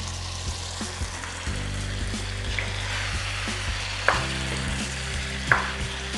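Chicken drumsticks and chopped vegetables sizzling in a stainless steel pan as a wooden spoon stirs them, with two sharper knocks of the spoon against the pan in the second half.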